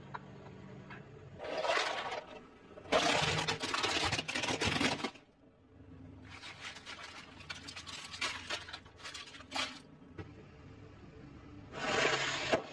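A car tyre rolling over and crushing objects, heard as four separate noisy bursts of crushing and crackling. The third burst, in the middle, breaks into many quick cracks.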